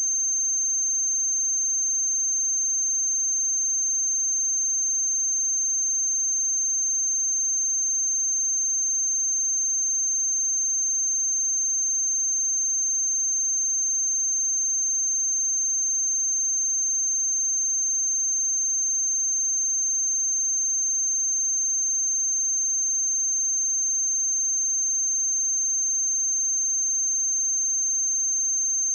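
A pure 6312 Hz sine-wave test tone: one steady, high-pitched tone held without change.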